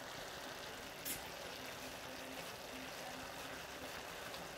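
Faint steady hiss of cabbage and corned beef cooking in a pot on the stove, with one sharp click about a second in.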